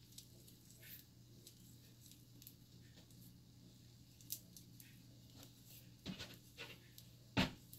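Long fingernails clicking and braided hair rustling as fingers work a braid: light, scattered ticks over a low hum, with a sharper knock near the end.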